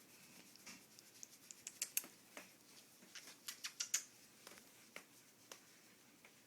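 Pet prairie dog scratching and clicking as it moves: faint scratches with a cluster of sharp little ticks between about two and four seconds in.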